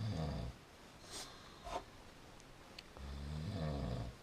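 A man snoring deeply in his sleep: two long, rasping snores about three and a half seconds apart, each lasting about a second.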